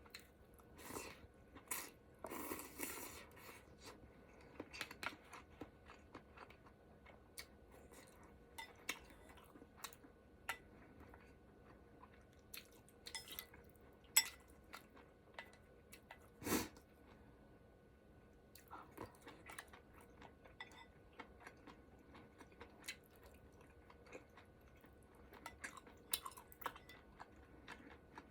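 A person eating and chewing quietly close to the microphone, with many short wet smacks and clicks scattered throughout. A cluster of louder bites comes a couple of seconds in, and a single longer, lower sound comes about sixteen seconds in.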